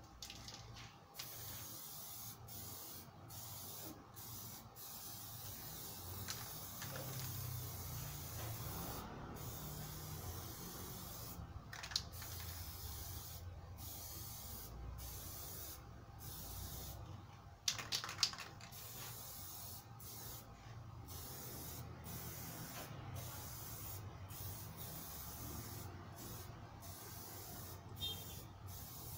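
Aerosol spray-paint can hissing in repeated sprays, broken by short pauses every second or so as the nozzle is released. A couple of sharp clicks sound near the middle.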